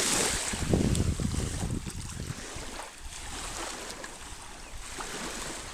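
Wind buffeting the microphone in irregular low gusts for the first couple of seconds, then easing, over a steady hiss of waves and water.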